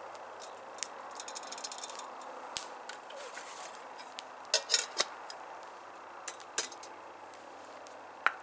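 A spoon clinking and scraping against a bowl while someone eats beans and wieners: scattered sharp clicks, a quick run of small ticks between one and two seconds in, and a few louder clinks around the middle and near the end.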